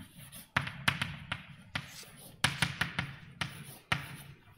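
Writing on a board: a run of sharp, irregular taps and knocks.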